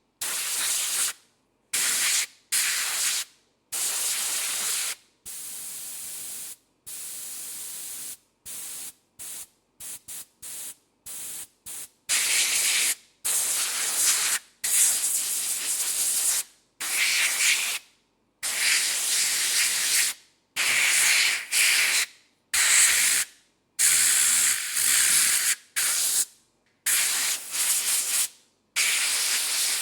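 Compressed air blasting from an air blow gun in repeated bursts of hiss. Some bursts are short and quick, others last a second or two, each cut off sharply.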